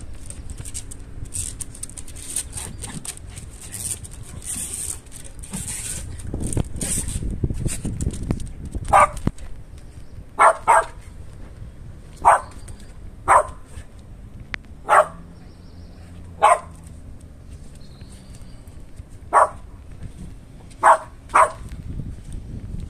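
West Highland White Terrier barking in short single barks, about ten of them in the second half, a second or two apart with a couple of quick pairs, after some rustling at the start. The dog is barking at a smell coming out of an air exhaust vent.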